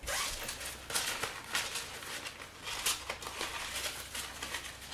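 Plastic packaging crinkling and rustling in the hands as it is handled and opened, in short, irregular scratchy crackles.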